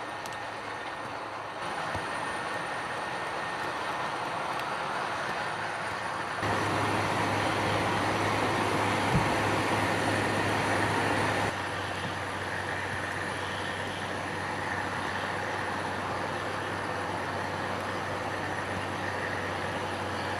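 Rotary snow blower working through deep snow: its engine and blower run steadily with a constant low hum and a thin high whine over a rushing noise. It is louder for about five seconds in the middle.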